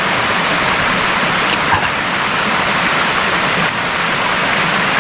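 Steady rushing of a waterfall pouring over rock.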